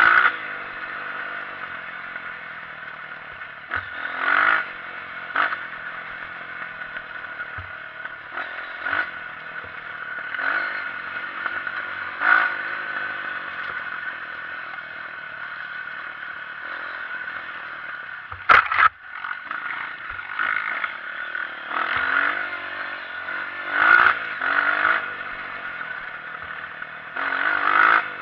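Honda CRF230 trail bike's single-cylinder four-stroke engine running under way, revs rising and falling with the throttle every few seconds, with clattering and scraping from the bike. A single sharp knock comes about two-thirds of the way through.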